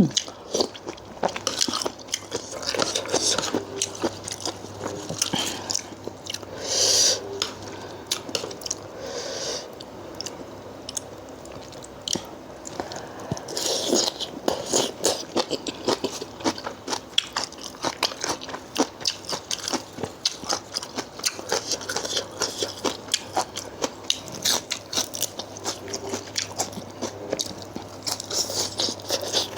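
Close-up chewing and crunching of spicy Thai seafood salad (yam talay), with squid and wood ear mushroom, in rapid crunchy bites throughout and a few louder crunches.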